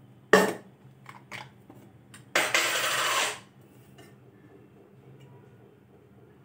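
Hand mixing a crumbly masala stuffing on a steel plate: a sharp knock about a third of a second in, a few light taps, then a rubbing scrape lasting about a second, over a faint low hum.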